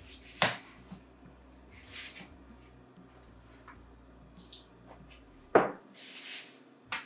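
Bread dough being kneaded by hand in a plastic bowl: soft squishing and rustling, with a little salted water poured in from a glass about four seconds in. Two sharp knocks, one about half a second in and a louder one about five and a half seconds in.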